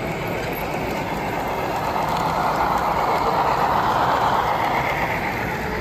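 HO-scale model train running on a layout, its diesel locomotive and boxcars passing close by: a steady running sound that swells about two seconds in and eases off near the end.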